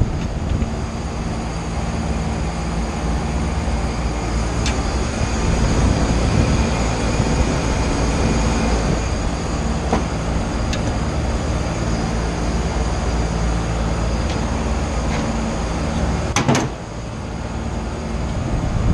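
Wind buffeting the microphone over a steady machine hum, with a few sharp metallic clicks from wrench work on the compressor fittings, the loudest a double click near the end.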